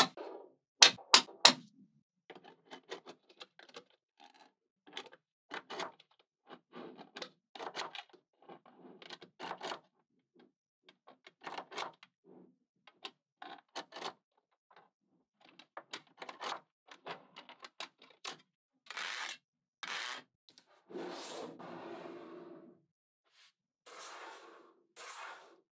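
Small magnetic balls clicking together as clusters are snapped onto a magnet-ball block and laid out in rows, a long run of sharp clicks and soft clacks in small groups. About 21 s in comes a longer rattle of balls, about two seconds long.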